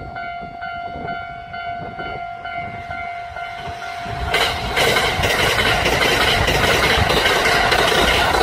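Kintetsu electric train passing close at speed. A steady ringing tone fades over the first couple of seconds. About four seconds in, the train's running noise rises sharply and stays loud, with the wheels clacking over the rail joints.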